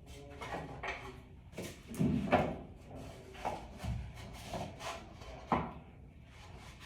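Particleboard side pieces of an under-carpet cable raceway being set down and pushed into place against each other on the floor: a series of wooden knocks and scrapes, the loudest about two seconds in.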